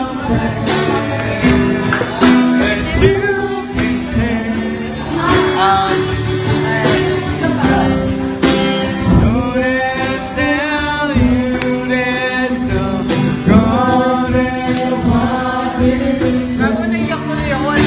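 Singing with acoustic guitar accompaniment, a sung melody over strummed chords.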